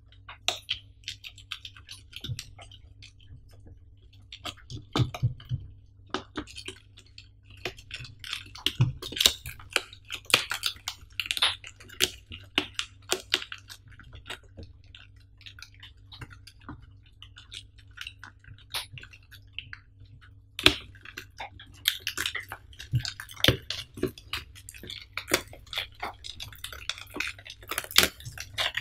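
Plastic shrink-wrap on a cardboard box being cut and scraped with a small blade and then peeled away: irregular crinkling, rustling and sharp ticks, busiest about 10 to 13 seconds in and again in the last seven seconds.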